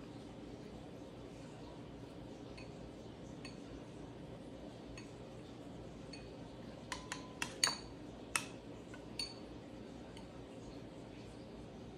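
A metal spoon clinking against a ceramic bowl of melted chocolate: a quick run of light, sharp clinks about two-thirds of the way through, over a faint steady room hum.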